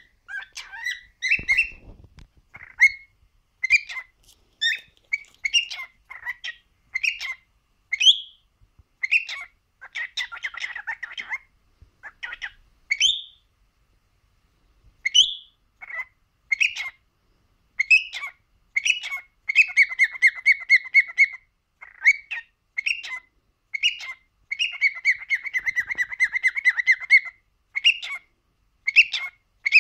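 Adult male cockatiel chirping and whistling in short calls, some sliding up in pitch, broken by several runs of rapid chattering warble lasting two or three seconds each. There is a short pause about halfway through.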